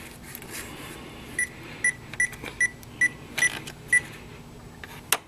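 Power Probe short finder receiver giving about seven short high beeps as it is run along a repaired wiring harness, a sign that the tracer signal is passing through the circuit. A single sharp click follows near the end.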